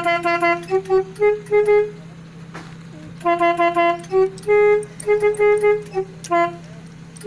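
Indonesian telolet bus horn playing a quick tune of short, clipped notes in two phrases, with a pause of about a second between them and a third phrase starting at the end. A steady low hum runs underneath.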